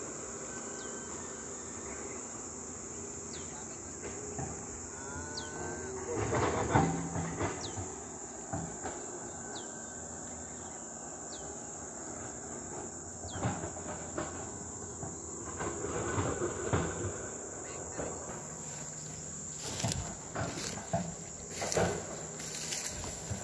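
Steady high insect drone of crickets or cicadas in the vegetation, with short high chirps every second or two. A few louder rustles and knocks come partway through and again near the end.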